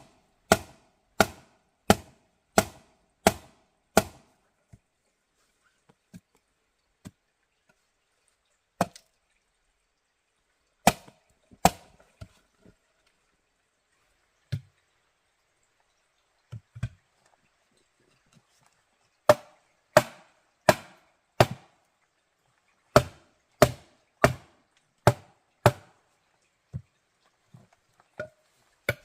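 A blade chopping against wood in steady runs of about one and a half strokes a second. There are two such runs, separated by a long stretch of scattered single strikes.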